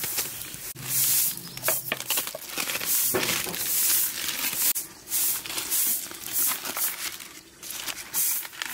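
Aluminium foil crinkling and rustling in irregular bursts as hands peel it open.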